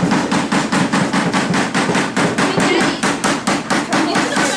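A rapid, steady series of sharp knocks or clicks, about six a second, over a murmur of crowd voices.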